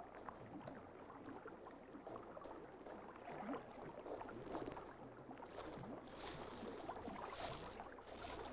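Faint splashing and lapping of water, irregular throughout, with a few brief louder splashy flurries in the second half.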